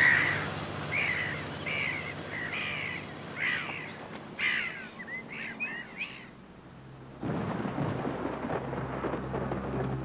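Gulls calling over a ploughing tractor, with a steady low engine hum beneath. The calls stop about six seconds in, and a second later a low rumble of thunder sets in.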